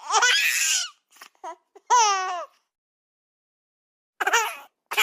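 Short, high-pitched baby-like cries played as separate sound effects: a cry of about a second, a shorter bending wail around two seconds in, and another brief cry near the end, with dead silence between them.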